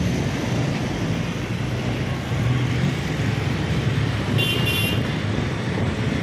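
Motorcycle engine running steadily under road and wind noise while riding through traffic. About four seconds in, two short high-pitched toots cut through.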